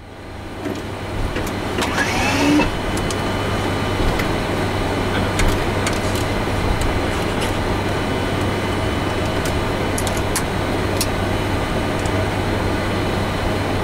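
Steady flight-deck noise of a Boeing 747-400F on the ground after landing: a constant low hum and even hiss from the running engines and air-conditioning, with scattered small clicks. It fades in over the first second or two, and a brief brighter hiss comes about two seconds in.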